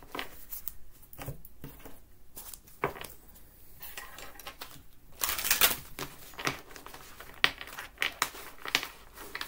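Oracle cards and their boxes being handled and shuffled by hand: scattered sharp clicks and flicks of card stock, with a longer rustle of shuffling a little past halfway.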